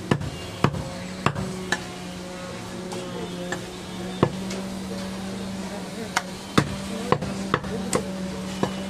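Butcher's cleaver chopping goat meat on a wooden log chopping block: sharp, irregular chops, several in the first two seconds, one about four seconds in, then a quicker run near the end. A steady low hum runs underneath.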